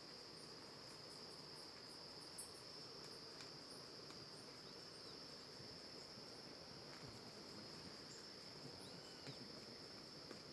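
Faint, unbroken high-pitched trill of insects such as crickets, with scattered faint short chirps above it.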